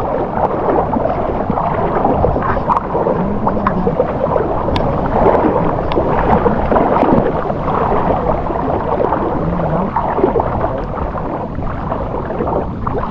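Sea water sloshing and splashing close to the microphone as people wade through it: a steady, loud rushing with small clicks and knocks.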